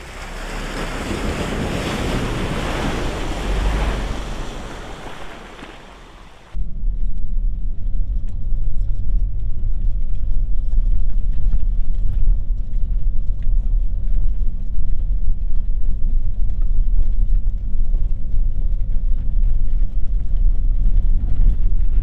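SUV splashing through a deep muddy puddle, the water noise swelling and then dying away over about six seconds. After a sudden cut comes a loud, steady low rumble of engine and road noise heard from inside the cab on a rough gravel track.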